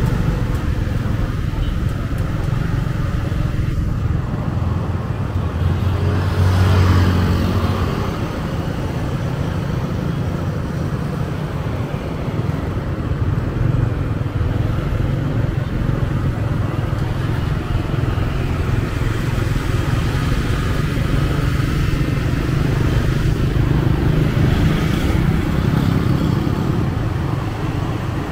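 Street traffic noise: motorbike and car engines running steadily, with one vehicle passing close about seven seconds in.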